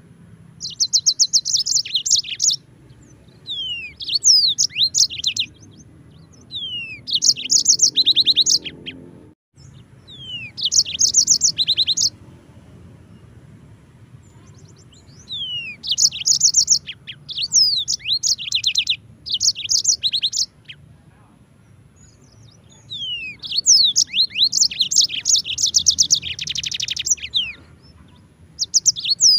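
Yellow-fronted canary singing phrase after phrase of fast, high trills mixed with downward-slurred whistles, with pauses of a few seconds between phrases.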